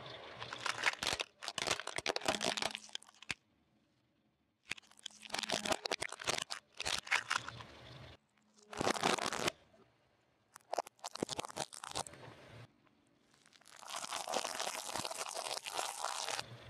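A car tyre crushing small objects on pavement: about five separate bursts of crunching and cracking with short pauses between them. The objects being crushed are plastic toy cars and then peanuts in the shell.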